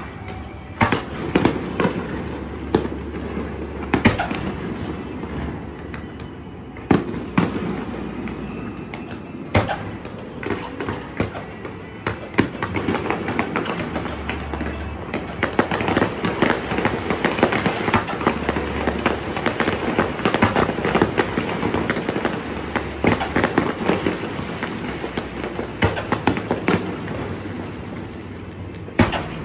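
Aerial fireworks display: firework shells bursting with repeated sharp bangs. A dense run of rapid crackling fills the middle of the stretch.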